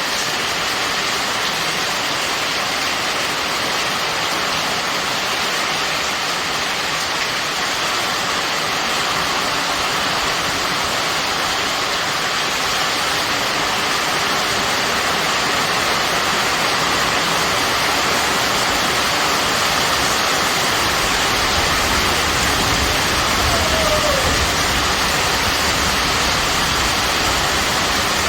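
Heavy rain falling steadily, a dense even hiss. A low rumble joins about three-quarters of the way through.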